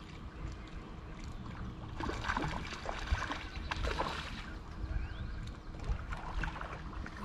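Wind rumbling on the microphone and water slapping a small boat's hull. From about two seconds in there is a run of splashes and clicks as a hooked trout is reeled in to the boat.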